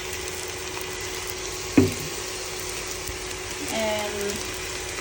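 Rice frying in a pan with a steady sizzle just after soy sauce is poured in, and one sharp knock about two seconds in.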